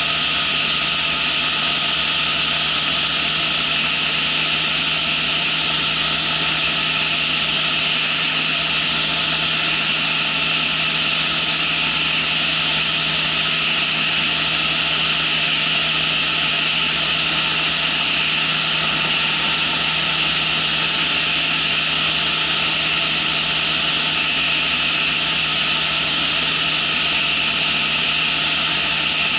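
Ultralight trike's engine and pusher propeller running steadily in flight, a constant droning hum under heavy rushing wind noise on the microphone.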